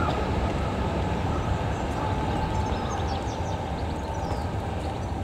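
Rumble of a ČD class 854 diesel railcar train drawing away, fading steadily.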